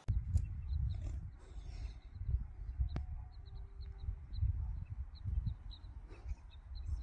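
Wind buffeting the microphone with an uneven low rumble. A small bird calls over it, a string of short, high chirps repeated a few times a second.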